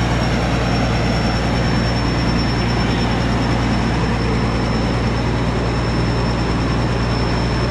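Tracked rice combine harvester's diesel engine running steadily under a loud, even hum, with a thin steady high whine over it.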